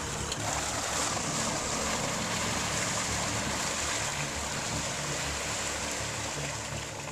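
Tracked Argo amphibious ATV driving through deep mud and water: a steady rush of churning, splashing mud and water over the low drone of its engine.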